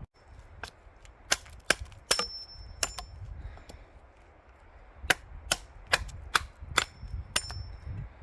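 Martindale machete chopping through wood: a run of about five sharp chops, a pause of about two seconds, then about seven more, roughly two a second. Some strokes leave a brief high ring from the steel blade.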